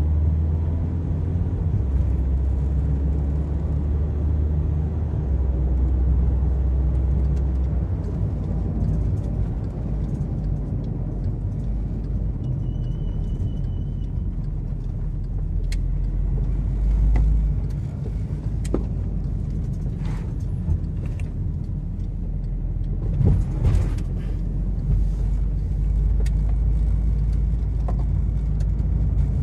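Engine and road noise of a moving vehicle heard from inside its cabin: a steady low rumble whose engine drone shifts in pitch during the first several seconds, with a few scattered clicks and knocks later on.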